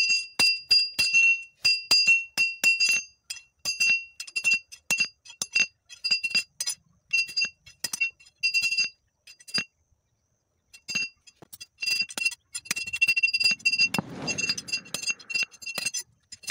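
Hand hammer striking a steel bar held in a heavy round iron bending die, cold-shaping it: runs of sharp metallic blows, about two to three a second, each ringing with a clear high tone, with a short pause near the middle.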